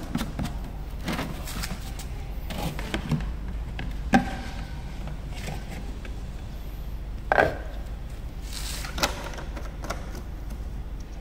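A few scattered knocks and clicks of things being handled and set down, the loudest a little past halfway, over a steady low hum.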